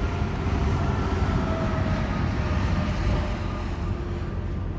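A vehicle passing close by, its tyre and engine noise swelling toward the middle and easing off near the end, over a low rumble of wind on the microphone.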